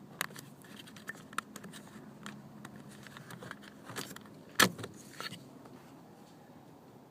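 Small plastic clicks and rattles from the window switch housing and its wiring clips on a car door panel being worked loose by hand. There is one sharper snap a little past halfway.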